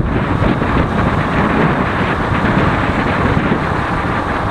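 Motorcycle riding at speed: a steady rush of wind over the action camera's microphone mixed with the bike's engine and tyre noise.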